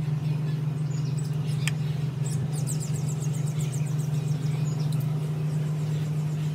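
A steady low hum, with a bird's rapid run of high chirps about two and a half seconds in.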